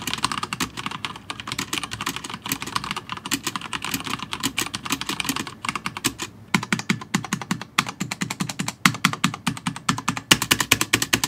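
Stock, unmodified mechanical keyboard with Cherry MX Red linear switches being typed on, a fast clatter of plastic key strokes straight out of the box. About halfway through the strokes become slower and more separate, then they speed up again near the end.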